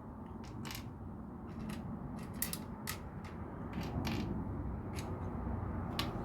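LEGO plastic pieces clicking and clattering now and then as they are picked up and fitted, about eight separate clicks, over a low background rumble that swells in the last couple of seconds.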